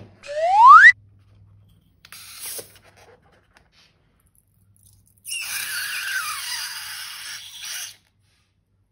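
A rubber balloon squeaks once with a short squeal that rises sharply in pitch. Later a brief rustle and then nearly three seconds of hissing with a faint falling whistle are heard, like air rushing out through a stretched balloon neck.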